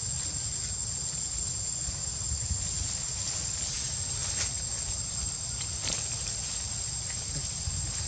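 Steady high-pitched drone of insects in the forest, with a low rumble underneath and a few faint ticks.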